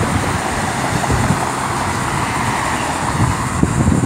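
Road traffic: an SUV driving past on the road, its tyre and engine noise fading away after a couple of seconds, with wind buffeting the microphone.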